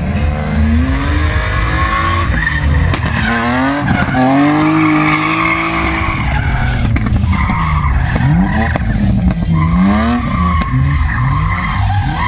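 Drift car's engine revving up and down again and again, with quick rises in pitch, while its rear tyres squeal in a long slide.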